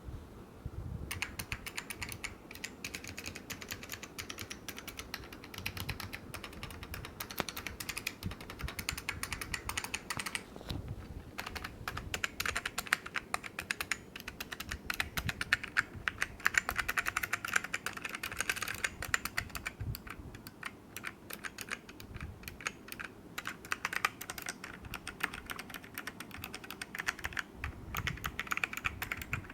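Ducky DK1008 mechanical keyboard with clicky green Alps switches being typed on fast and continuously. The typing starts about a second in, with a few brief lulls.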